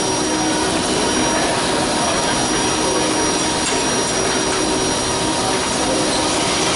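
Steady, loud machinery noise like rushing air, with faint steady whining tones running through it.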